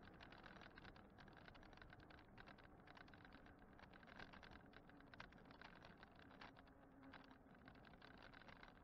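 Faint rattling and irregular clicking over a low rumble, from an e-bike rolling along an asphalt road.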